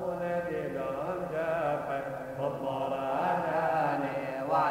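Syriac Orthodox liturgical chant, sung as a continuous wavering, ornamented melodic line.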